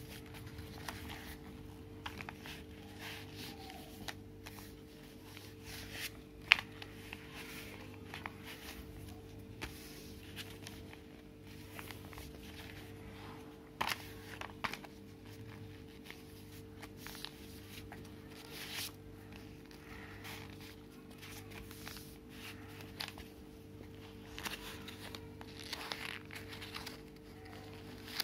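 Paper rustling and crinkling as a sheet of pink paper is folded into accordion pleats and pressed down by hand, with scattered sharp clicks and taps on the table, the sharpest about six and a half seconds in. A steady low hum runs underneath.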